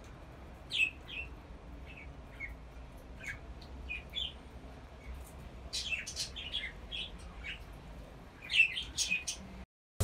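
A flock of budgerigars chirping in short, scattered calls, busier around six seconds in and again near the end. The sound cuts off suddenly just before the end.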